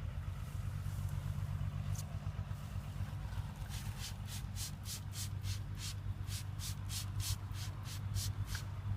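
Spray bottle squirting sugar water in a quick run of short hissing bursts, about three a second, starting a few seconds in, over a steady low hum.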